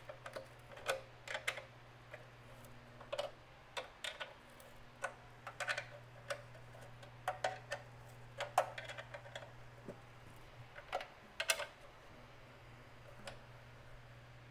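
Irregular light clicks and taps of small metal hardware as nuts and a bolt are fitted by hand to fasten a fuel tank onto a small engine, over a steady low hum.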